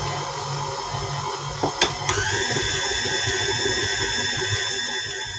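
KitchenAid stand mixer running with its dough hook, kneading a stiff pasta dough: a steady electric motor whine. About two seconds in there is a click, after which a higher whine joins in.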